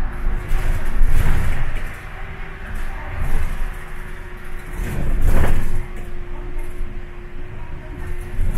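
Interior sound of a city bus driving on a wet road: a steady engine hum and rumble with tyre noise, swelling twice into louder hissing road noise about a second and five seconds in.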